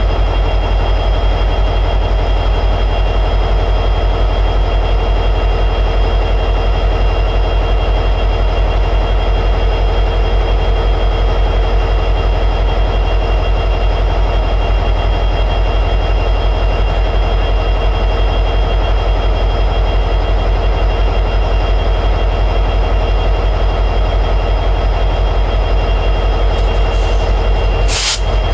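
EMD 710G3B two-stroke diesel prime mover of an SD60E locomotive running steadily at high idle. A single brief sharp click comes near the end.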